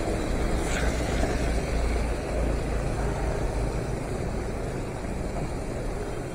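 Inside a moving vehicle on a wet road in the rain: a low, steady engine rumble under a continuous hiss of tyres on wet tarmac and falling rain.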